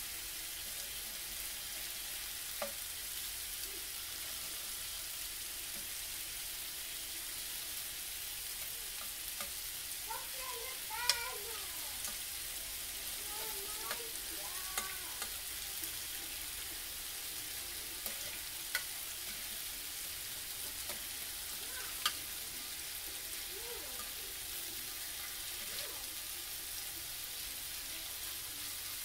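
Thin slices of marinated lamb sizzling steadily on a hot oiled grill as the pieces are turned over, with an occasional sharp click of a utensil against the grill.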